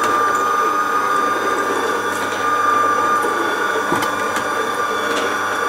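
Vertical slow (auger) juicer running with a steady whine while it crushes orange segments fed in by hand, with a few sharp clicks along the way.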